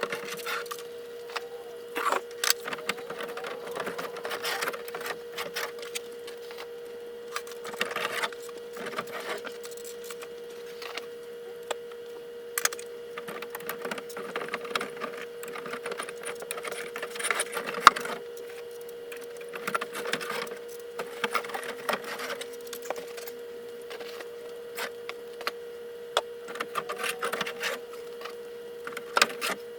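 Demolition of a drop ceiling and old wall paneling: irregular cracking, snapping and splintering as panels are broken and pulled away, in scattered bursts, over a steady hum.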